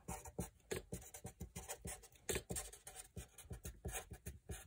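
Felt-tip marker writing on paper on a clipboard: a run of short, faint scratching strokes, uneven in rhythm.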